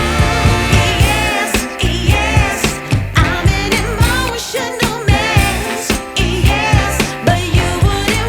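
Background music: a pop/soul song with a sung vocal over a steady drum beat.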